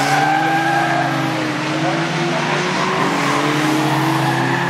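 Engines of several BriSCA F2 stock cars running together as the pack races round, loud and steady, their pitches drifting slightly up and down.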